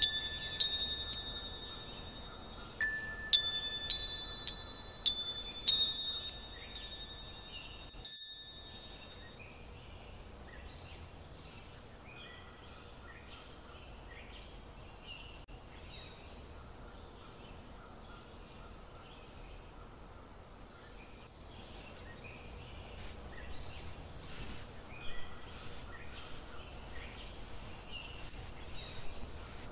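Bright chime notes, like a wind chime or glockenspiel, ringing and overlapping in a slow phrase, cut off abruptly about eight seconds in. After that, quiet room tone with faint scattered clicks and a few soft bird chirps, the clicks coming more often near the end.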